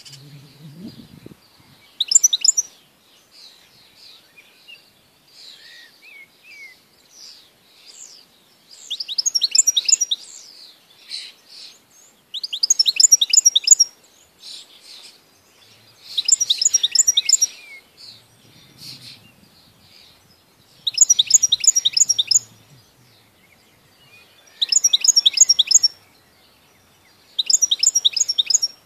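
European goldfinch singing: seven loud phrases of rapid, high trilled notes, each about a second and a half long and repeated every three to four seconds, with softer twittering in between.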